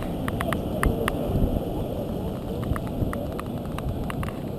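Storm wind buffeting the microphone as a steady low rumble, with scattered sharp clicks over it.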